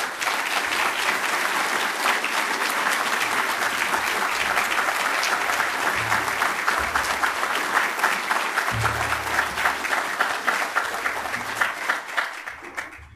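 Audience applauding at the close of a speech: dense, steady clapping from many hands that stops suddenly at the end.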